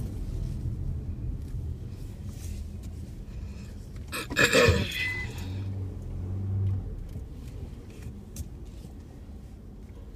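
Low rumble of a car's engine and road noise heard from inside the cabin while driving slowly. About four seconds in comes one short, loud sound that falls in pitch.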